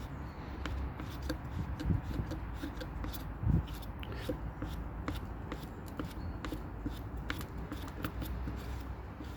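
Sticking scooter wheel being spun back and forth by hand to work it free after WD-40, giving irregular rapid clicks and rattles. There are two dull knocks, about two and three and a half seconds in.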